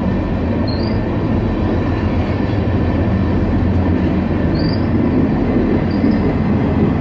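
Tank cars of a slow-moving freight train rolling past close by: a steady rumble of steel wheels on rail, with a few brief high squeaks.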